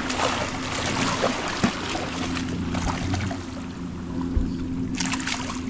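Boat engine running steadily with a low hum, under wind and water noise. A short burst of hiss comes near the end.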